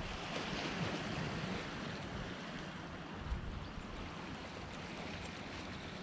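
Steady rushing outdoor noise with no clear pitch or rhythm, and one short soft thump about three seconds in.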